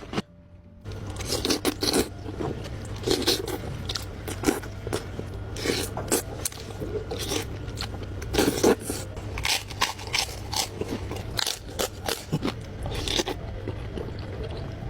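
Close-miked eating of seblak: irregular wet chewing, biting and crunching with many short mouth clicks and smacks. A steady low hum runs underneath.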